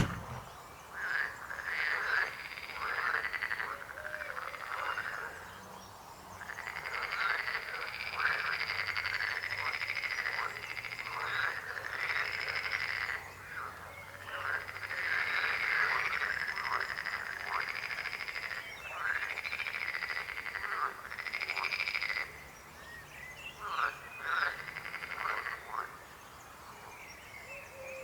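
Frogs croaking in a chorus, many calls overlapping in long runs, with a few short lulls.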